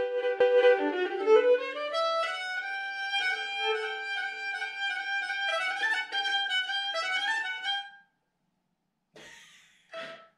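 Cretan lyra bowed solo, playing a melody that stops about eight seconds in, followed by two brief soft sounds near the end.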